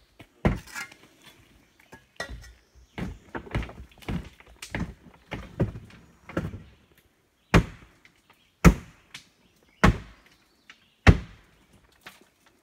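Hammer blows knocking on the wooden frame under a dry stone bridge arch to drive it loose: a sharp knock just after the start, softer knocks and scrapes through the middle, then four hard strikes about a second apart near the end.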